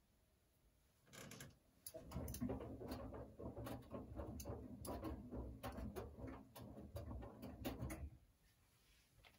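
Siemens iQ700 front-loading washing machine running briefly: a low motor hum under a dense clatter of clicks and rattles, starting about a second in and stopping abruptly near the end.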